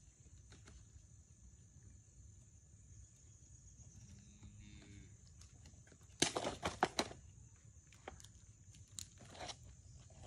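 Cardboard and plastic packaging crackling and rustling as it is pulled off a new bike. There is a short burst of crackles about six seconds in, then a few scattered clicks.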